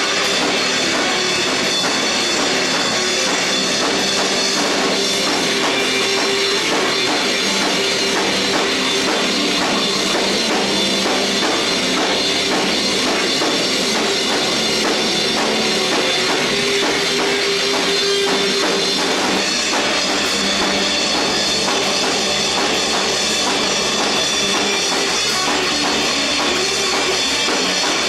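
A rock band playing live, loud and without a break: a drum kit keeps a steady beat under guitar.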